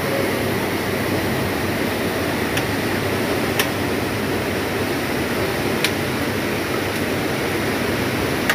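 Steady rushing of a fast, flood-swollen river, with four short sharp knocks scattered through it.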